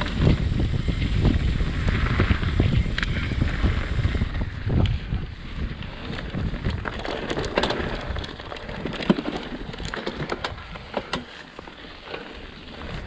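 Mountain bike riding down a dirt trail. Wind buffets the microphone over the rolling tyres, then eases after about six seconds into scattered clicks and rattles of the bike going over bumps.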